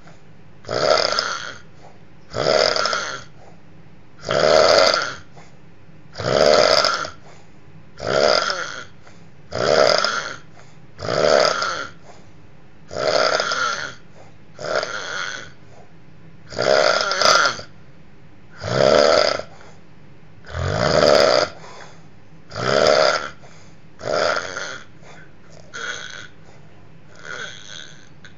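A person snoring loudly and rhythmically, one rasping snore about every one and a half to two seconds, the last few softer.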